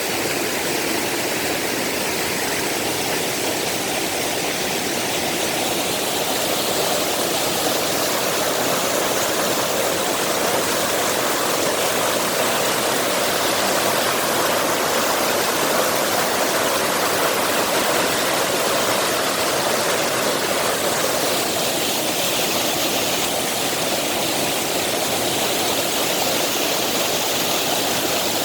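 Mountain valley stream rushing and splashing steadily over rocks.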